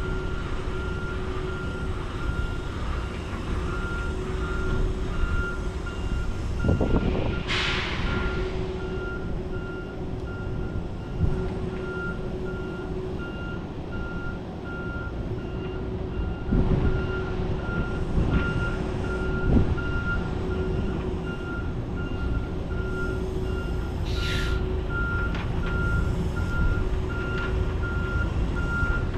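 Semi truck reversing with its backup alarm beeping steadily over the low rumble of the diesel engine. A short burst of air hiss comes about seven seconds in and again near the end, typical of the air brakes being applied and released while backing.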